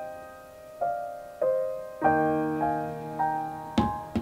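Slow solo piano background music, single notes and chords that each fade away. Near the end comes a short knock, as something is set down on a counter.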